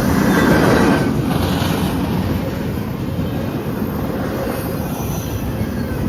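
CSX intermodal freight train cars rolling past, with a steady rumble of steel wheels on the rails and a faint high wheel squeal near the start.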